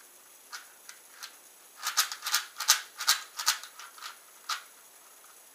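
ShengShou 4x4 V3 speed cube's plastic layers being turned by hand, clicking as they snap into place. A few scattered clicks, then a quick run of turns about two seconds in, and a single last click near the end.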